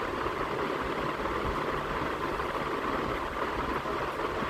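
Steady background noise, an even hiss-like hum with nothing else standing out.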